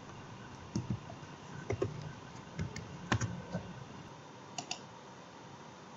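Faint, irregular clicks and knocks of a Logitech G102 gaming mouse being clicked and slid over a mousepad, ending in a quick pair of clicks.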